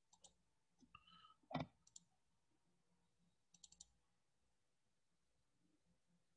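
A few scattered clicks of a computer mouse over near silence. The loudest comes about a second and a half in, and a quick cluster of clicks falls near the middle.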